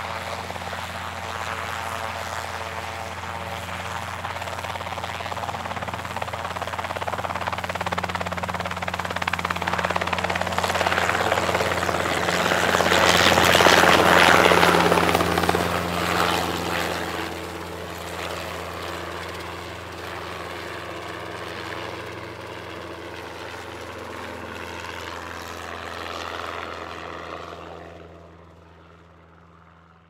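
Helicopter taking off: a steady low rotor and turbine hum under a rushing noise that builds to its loudest about halfway through, then eases off and fades out near the end.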